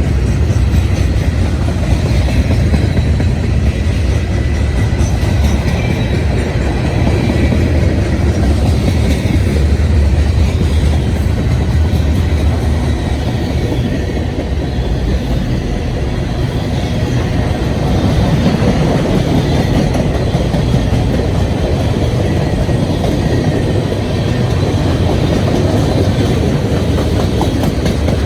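A long mixed CSX manifest freight train's cars rolling past close by: a steady loud rumble of wheels on rail with clickety-clack from the rail joints.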